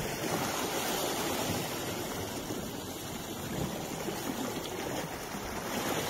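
Small sea waves washing in over shore rocks, a steady rushing of foamy surf.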